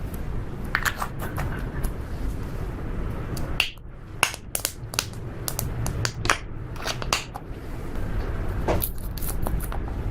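Slime being kneaded and stretched by hand, giving an irregular run of sharp clicks and pops as trapped air bursts.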